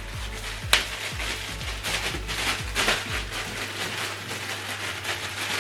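Background music with a steady bass beat, over rustling and a sharp click about three-quarters of a second in as boxed accessories are handled.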